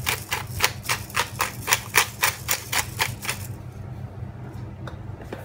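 Pepper grinder being twisted, its burrs clicking about four times a second as it cracks pepper. The clicking stops about three and a half seconds in.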